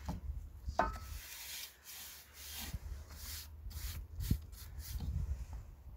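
A rag rubbed back and forth along charred wooden strips in irregular strokes, wiping on a turpentine, tar and varnish mixture to waterproof the wood.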